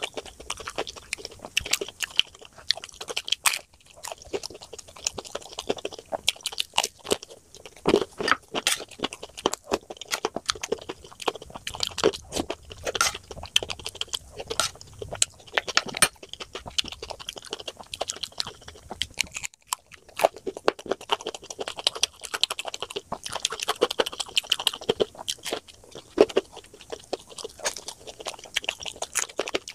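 A person crunching and chewing crisp Indian street snacks, spoonfuls of papdi chaat with sev and a samosa, in close, irregular crunchy bites.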